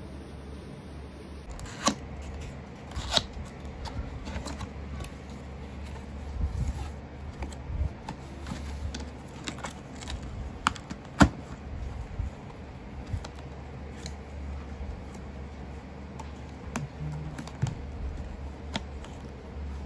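Cardboard fan box being handled and opened: scattered taps, clicks and rustles of the cardboard, the sharpest about 2, 3 and 11 seconds in, over a steady low hum.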